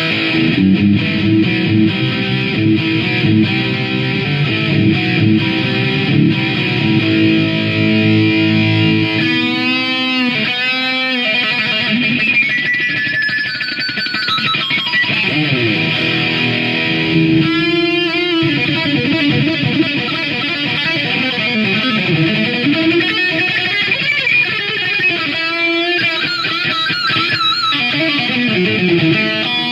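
Electric guitar playing, with chords in the first third, then long sliding pitch dives and several bursts of fast warbling notes.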